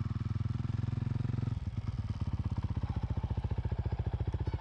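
Honda CRF450L's single-cylinder four-stroke engine idling through its aftermarket Yoshimura RS4 exhaust, with an even beat of firing pulses. About a second and a half in, it settles into a slower, more distinct thump.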